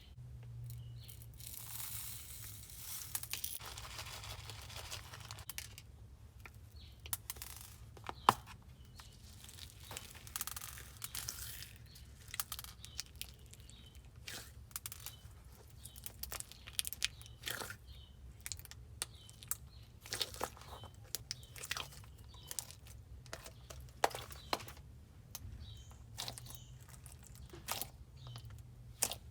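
Clear slime with slush beads being squished and pulled by hand, giving a soft sticky hiss at first and then many short clicks and pops.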